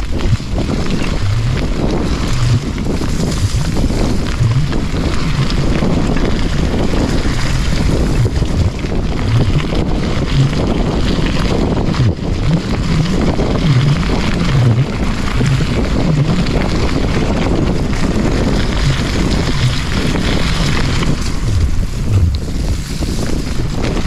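Steady wind buffeting the microphone of a handlebar-mounted camera while a mountain bike is ridden along a dirt trail, with a low rumble from the bike moving over the ground.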